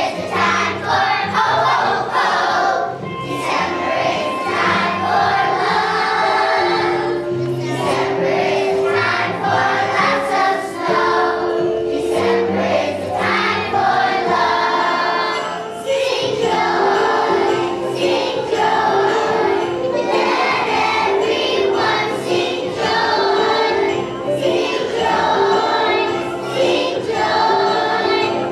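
Children's choir singing a Christmas song with instrumental accompaniment.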